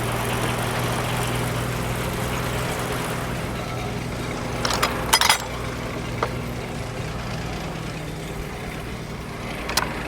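The engine driving a Frick sawmill runs steadily with no log in the cut, its low hum easing down about three-quarters of the way through. Sharp metal clanks come about halfway through and again near the end.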